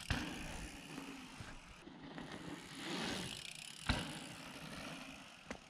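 Mountain bike rolling over a dirt trail: tyre noise and drivetrain rattle that swells about three seconds in, with a sharp knock just under four seconds in and smaller knocks at the start and near the end.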